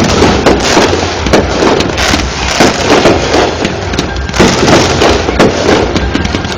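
Fireworks display: a rapid, continuous string of loud bangs and booms with crackling between them, several a second.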